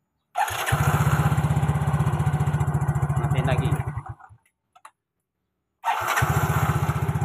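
Yamaha Mio scooter's single-cylinder four-stroke engine being test-started on the electric starter after the starter motor was reassembled. It catches almost at once and runs with an even, pulsing beat, is switched off a little after 4 s, then is started again about 6 s in and keeps running.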